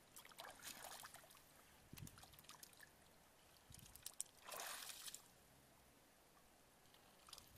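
Faint splashing and sloshing of hands grabbing a fish in shallow muddy water, with small scattered drips and clicks and one brief louder splash about halfway through.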